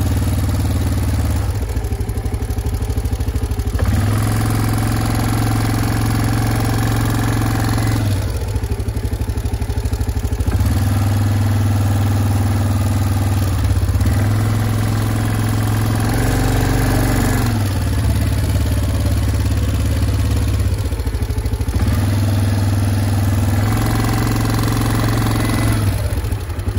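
Farm motorcycle's engine running at low speed while herding sheep, its note rising and falling several times as the throttle is opened and eased off.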